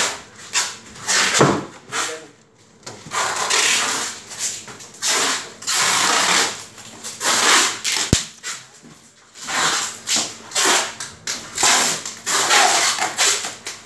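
Packing noises: repeated bursts of rasping and rustling as plastic food containers and styrofoam boxes are handled, with a sharp click about eight seconds in.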